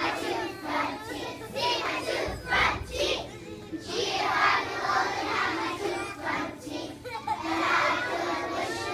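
A large group of young children singing together, with many voices overlapping in a crowd-like din.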